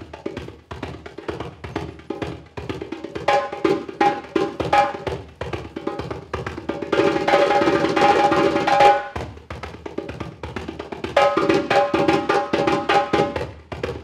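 Hand drum played with bare hands in a fast solo rhythm, sharp slaps mixed with ringing open tones. About seven seconds in the strokes pack into a dense, louder roll, then drop back briefly before the rhythm picks up again.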